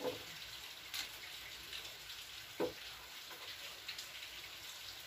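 Quiet handling of household objects: a few light clicks and one sharper knock about two and a half seconds in, over a steady faint hiss.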